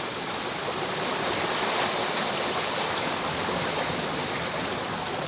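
Steady rushing noise of wind and water around a sailing yacht under way.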